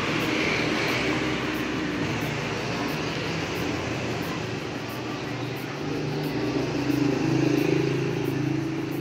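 Motorbike engines running in passing street traffic, one getting louder and closest about seven seconds in before easing off.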